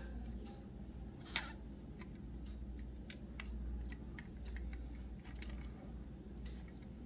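Light clicks and taps of a diecast model car being handled, with one sharper click about a second and a half in.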